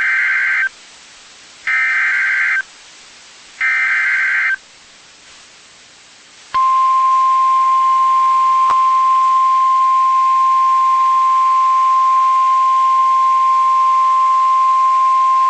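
NOAA Weather Radio Emergency Alert System activation: three bursts of SAME header data tones, each about a second long, then a pause and the steady single-pitch warning alarm tone held for about nine seconds. It signals that a severe thunderstorm warning is about to be broadcast.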